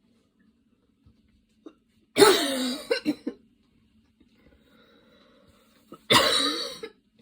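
A woman coughing in two bouts. A loud cough about two seconds in is followed quickly by two short coughs. After a faint breath, a second loud cough comes near the end.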